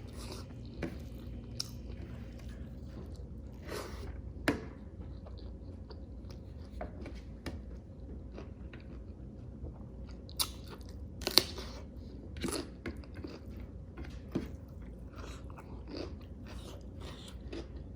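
Close mouth sounds of a person eating rice and chicken curry: steady chewing and biting, with scattered sharp crunches and clicks, the loudest about a quarter of the way in and a cluster around two thirds in.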